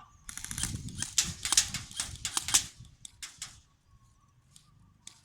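Airsoft guns firing a rapid string of shots, several of them loud sharp cracks, stopping about three and a half seconds in.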